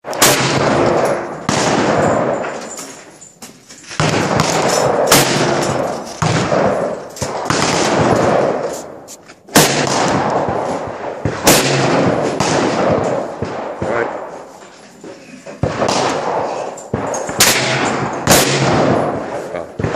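Rifle shots along a firing line, more than a dozen at irregular intervals of about one every second or two, each with a long echoing tail that dies away.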